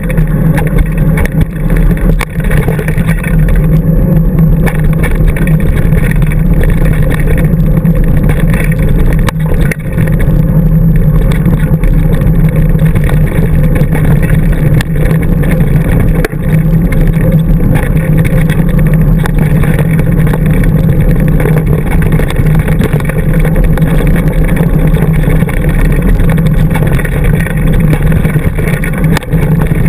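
Steady, loud low rumble of wind buffeting and trail vibration picked up by a handlebar-mounted action camera as a mountain bike rolls fast downhill over a dirt trail, with a few short knocks from bumps.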